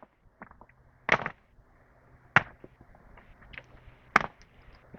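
Firewood being chopped: sharp wooden knocks, one about every second and a half, with small clicks between them.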